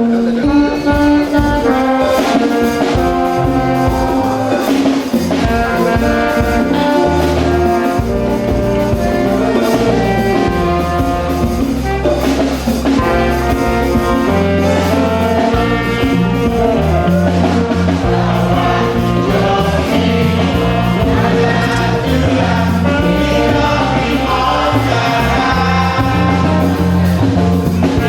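Music with a moving bass line and a steady drum beat.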